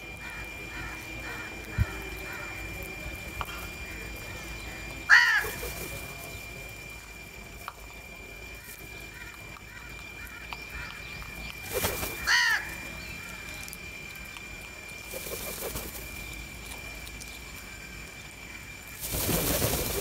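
House crows cawing: two loud, harsh caws about five and twelve seconds in over softer calls from the flock. Near the end comes a rush of wingbeats as the flock takes off.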